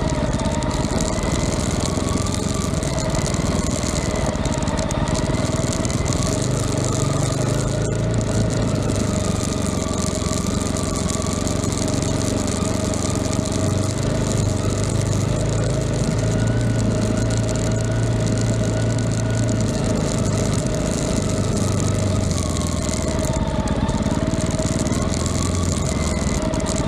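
An engine running steadily, with a constant hum and a slight waver in pitch.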